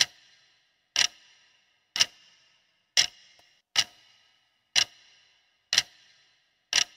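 Clock-tick sound effect, one sharp tick a second with a short ringing tail, counting down a quiz answer timer.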